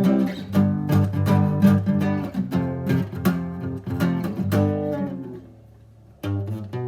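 Instrumental break of a song: guitars picking and strumming a steady rhythm, dying down about five seconds in and coming back in just before the end.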